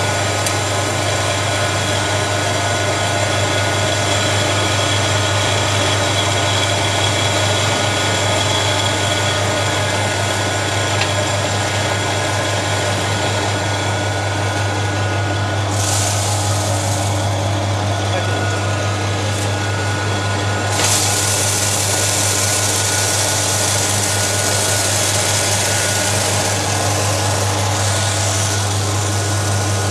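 Rice polishing machine running steadily, its electric motor humming under the rush of the milling drum, while polished rice pours from the outlet chute. A brighter hiss joins briefly past the middle and again from about two-thirds in.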